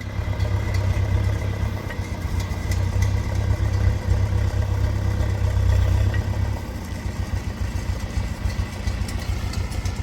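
The old Case 580CK backhoe's engine runs steadily with a heavy low rumble, which eases about six and a half seconds in as the engine carries on at a lighter note.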